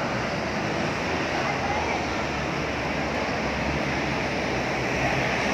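Steady hum of street traffic from the road below, with faint voices of people nearby.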